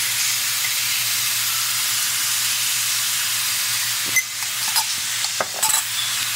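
Lamb pieces with spices frying in a stainless-steel pan: a steady sizzle, with a few light clicks and knocks between about four and six seconds in.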